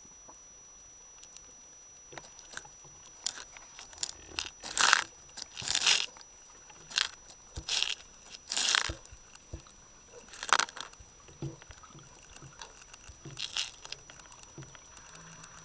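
Underwater noise picked up by a submerged camera: from about three seconds in, about a dozen irregular bursts of crackling hiss, over a faint steady high whine.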